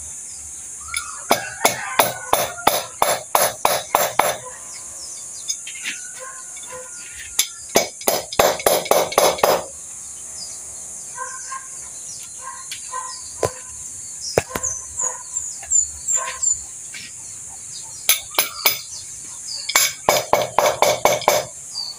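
A wrench being worked on the top of a Mitsubishi 4DR5 diesel engine, giving quick runs of metallic clicks, about five a second, in several bursts, over a steady high insect drone.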